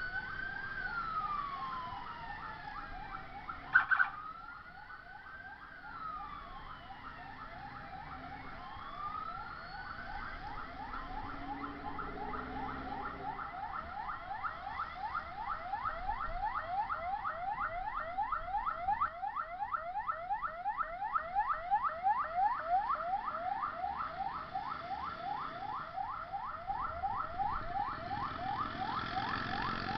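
Ambulance siren. For about the first ten seconds it wails slowly up and down, then it switches to a fast yelp of about three sweeps a second that grows louder. There is one short, loud blip about four seconds in.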